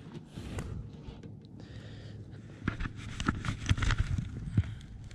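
Handling noise in a plastic kayak: light knocks and scrapes as the person shifts and reaches over the side, bunched together from about three seconds in to near the end.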